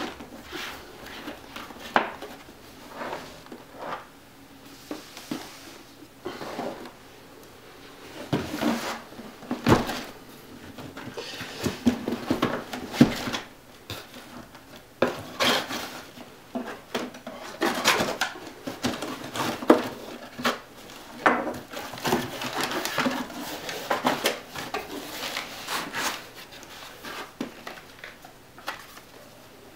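A cardboard shipping box being handled and opened: irregular knocks, scrapes and rustling of cardboard flaps and packing paper, busiest through the middle stretch.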